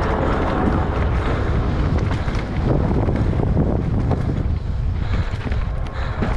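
Wind buffeting the microphone over the rumble and clatter of a mountain bike descending a rough trail at speed: a steady low roar broken by many small rattles and knocks.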